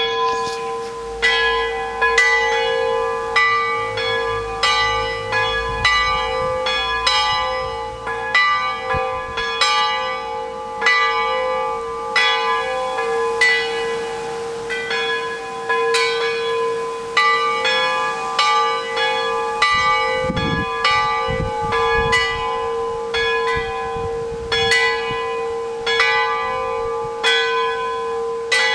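Church bells ringing for the Sunday service: a steady run of strikes, about two a second, on several bells of different pitch, each ringing on into the next.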